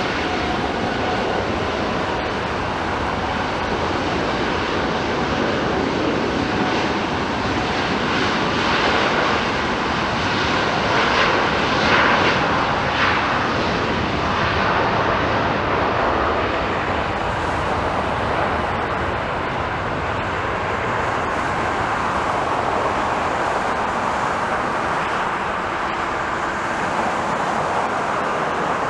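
Heavy jet airliner's engines at takeoff power, a continuous rushing jet noise that swells to its loudest about halfway through and then eases slightly.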